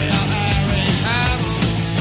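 Music: a rock song playing steadily.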